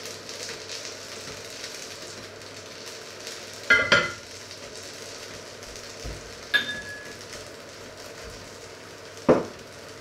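Pot of chicken pieces in broth simmering on the stove with a steady sizzling hiss, broken three times by short knocks and clinks of kitchenware. The second clink, about two-thirds in, rings briefly like glass, and the last knock, near the end, is the loudest.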